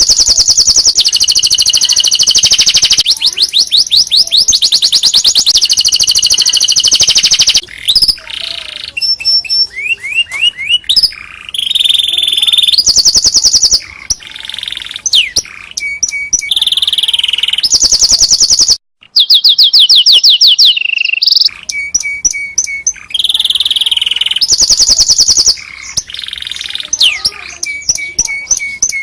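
Domestic canary singing a long, loud song of fast rolling trills, each phrase a rapid run of repeated high notes, mixed with quick sweeping whistles. There is a brief break about two-thirds of the way through before the trills resume.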